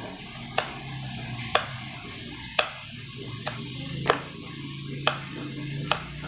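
Kitchen knife slicing through green beans onto a cutting board: a sharp knock of the blade against the board about once a second, seven cuts in all.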